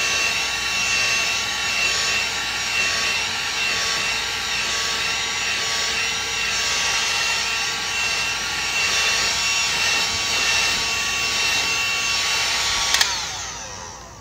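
Handheld electric heat gun running with a steady fan whine, blowing hot air over a freshly brushed coat of encaustic wax to fuse it into the paper. About a second before the end it clicks off and the fan winds down.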